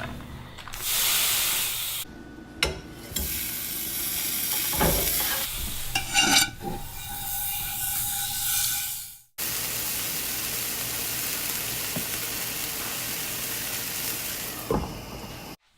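Grilled cheese sandwich sizzling as it fries in a pan, with clicks, scrapes and knocks of utensils against the pan. The sound cuts out for a moment about nine seconds in, then returns as a steady sizzle with a single knock near the end.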